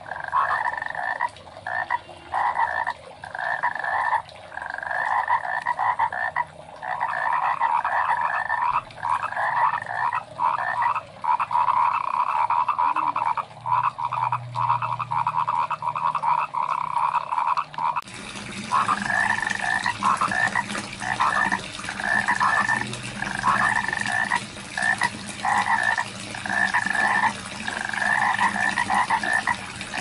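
A chorus of frogs croaking, many calls repeating and overlapping without a break. About eighteen seconds in, a steady hiss and a low hum come in under the calls.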